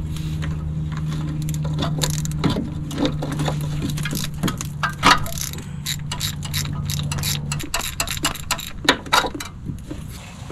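Metal hand tools clicking and tapping irregularly against brake caliper hardware, over a steady low hum that stops about three-quarters of the way through.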